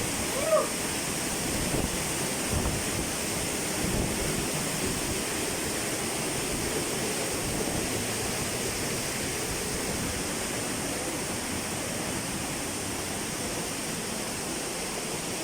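Steady, unbroken rushing of a waterfall heard close up from the cave behind the falling water of Baizhang waterfall's concave cascade.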